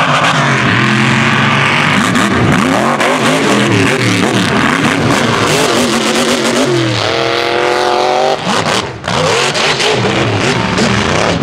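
Mega truck's engine revving hard at high throttle, its pitch climbing and falling again and again, with one long rising rev and a brief drop in loudness about three-quarters of the way through.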